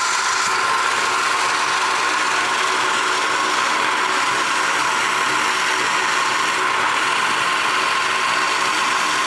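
Electric coconut-grating machine running steadily, grating coconut, with a constant high whine over a grinding noise.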